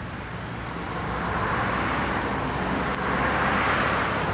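Road-traffic noise from a passing vehicle, an even rushing sound that swells about a second in and stays up.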